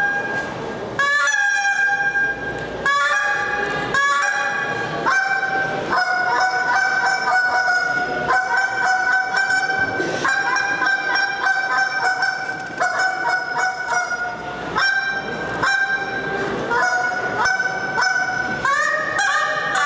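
Mouth-blown goose call played by a skilled caller imitating geese: separate loud honks, each breaking from a high note to a lower one, then a fast run of short honks and clucks that steps up in pitch near the end.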